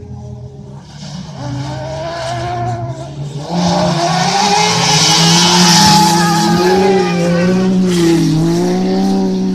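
Engines of 4x4 1600 cc autocross prototype buggies racing on a dirt track, revving and rising and falling in pitch. It gets much louder about three and a half seconds in as cars slide through the corner close by, with a hiss of tyres spinning on loose dirt.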